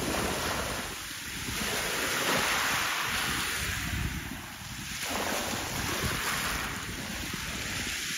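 Gusty wind buffeting the microphone, with a stronger gust a couple of seconds in that eases off around five seconds.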